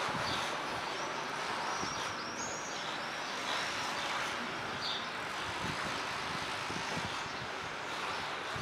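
Outdoor street ambience: a steady rushing noise, with a run of short high chirps about two seconds in and one more about five seconds in.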